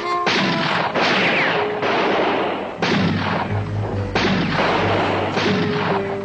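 About five gunshots over six seconds, each starting sharply and trailing off in a long echo, over a dramatic orchestral film score.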